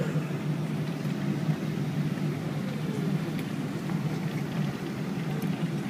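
Cabin noise inside a Boeing 777-200 taxiing off the runway just after landing: a steady low rumble from the airliner's Rolls-Royce Trent engines at idle and its rolling on the ground.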